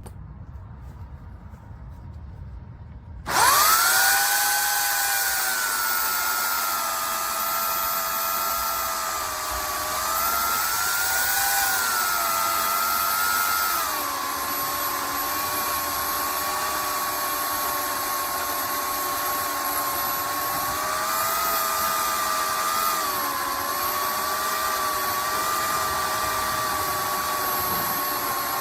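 Electric chainsaw motor switching on suddenly about three seconds in and running with a high whine. Its pitch settles lower, then wavers and dips now and again.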